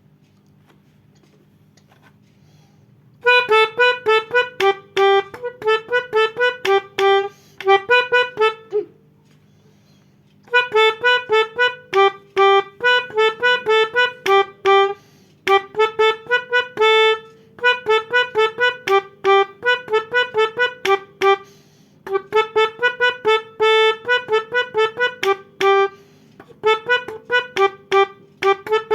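Melodica (pianika) playing quick, short notes that hop between a few pitches in repeated phrases, a telolet bus-horn tune. It starts about three seconds in, with short pauses between the phrases.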